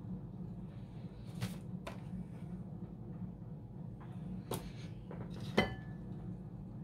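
Kitchen handling noises: a few light knocks and clicks as a bag of flour and a mesh sieve are handled over a mixing bowl. The loudest comes near the end and rings briefly. A steady low hum runs underneath.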